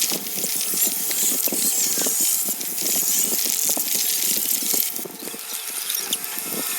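A fast, busy run of mixed sound effects: hissing noise full of short clicks and knocks, dipping a little about five seconds in.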